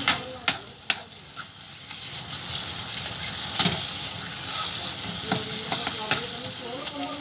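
Onion-and-tomato masala sizzling in a metal kadai while a spoon stirs it, clacking sharply against the pan: three quick clacks in the first second and a few more from the middle to near the end.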